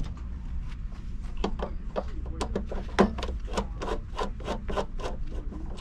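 Screwdriver working a terminal screw on a new two-pole air-conditioner contactor: a regular run of short scraping, rubbing strokes, about four a second, starting about a second and a half in.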